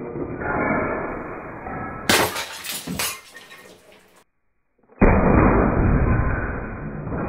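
Glass bottles shattering under hits from a Walther PPQ T4E .43 calibre CO2 pistol: a sharp crack about two seconds in and a second about a second later, then after a moment of silence a loud, dull crash of breaking glass that dies away.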